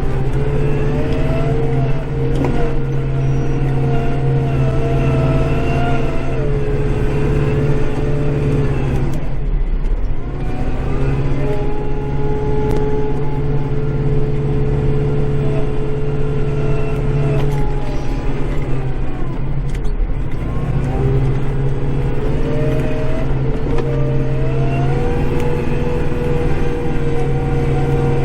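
Kubota tractor engine running steadily under load, heard from inside the cab. A higher whine rises in, holds and falls away three times, dropping out briefly about nine and nineteen seconds in.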